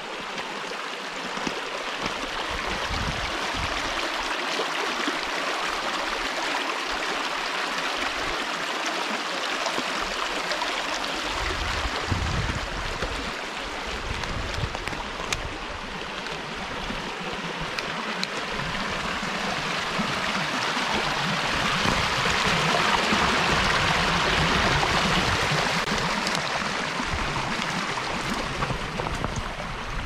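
Shallow woodland stream running over gravel and stones: a steady babble of flowing water, swelling louder a little past the middle and easing off near the end.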